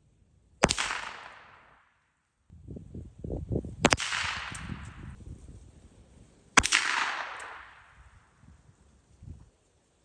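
Three rifle shots about three seconds apart, each a sharp crack that trails off over about a second. Low rumbling noise comes before the second shot.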